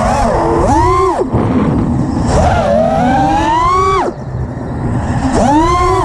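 Brushless motors and props of an FPV freestyle quad (T-Motor Veloce 2306.5 1950kv, Gemfan props) heard from the onboard camera, their whine swooping up and down with the throttle. The pitch climbs steadily from about two to four seconds in, cuts off abruptly as the throttle is chopped, then surges up again near the end, over wind rush on the microphone.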